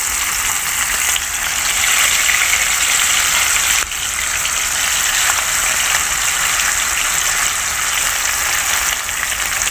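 Marinated rohu fish steaks frying in hot mustard oil in a kadhai: a steady, loud sizzle that dips briefly about four seconds in.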